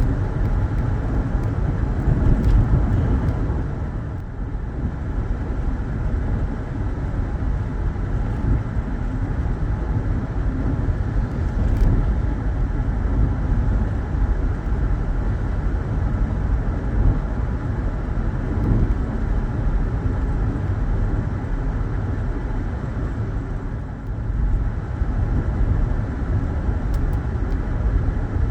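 Steady road and engine noise of a car being driven, heard from inside the cabin: a continuous low rumble.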